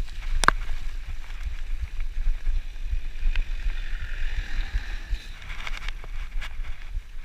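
Mountain bike running fast down a rutted dirt track: heavy wind rumble on the microphone over the hiss of tyres on dirt, with the bike rattling and clacking sharply over bumps, the loudest clack about half a second in.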